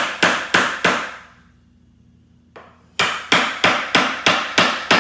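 Hammer beating on a screwdriver to break open the screwed-on end cap of a cardboard shipping tube: a quick run of sharp blows, about three a second, each ringing briefly. The blows stop about a second in, and after a pause of about two seconds another run of seven or so starts.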